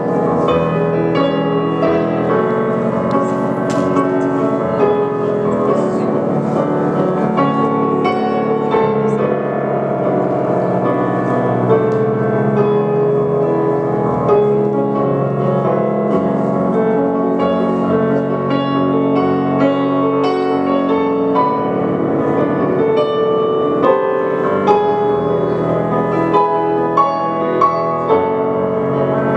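Music led by piano, a steady flow of notes with no pause.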